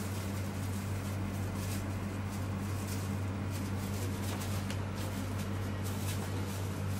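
A steady low electrical hum, with faint crinkles and small clicks as a probe in a clear plastic cover is handled.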